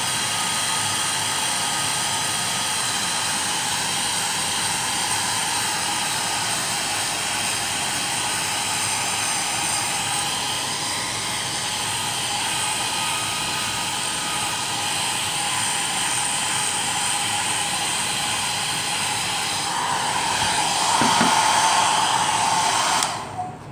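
Handheld hair dryer running steadily on its full setting, blowing hot air onto damp clothes: a steady fan rush with a constant whine. It gets louder about 20 seconds in, then is switched off abruptly just before the end.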